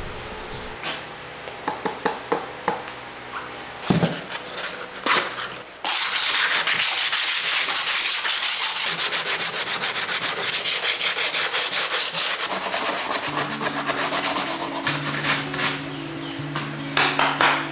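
Hand sanding of cured fiberglass with an abrasive sponge: a few separate scrapes at first, then fast, even back-and-forth scrubbing from about six seconds in. Background music with steady low notes comes in near the end.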